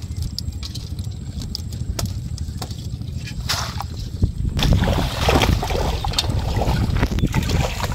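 Shallow water sloshing and splashing as a bamboo cage fish trap is moved and lifted in it, growing louder about halfway through. Before that, a steady low wind rumble on the microphone with scattered small clicks of the trap being handled.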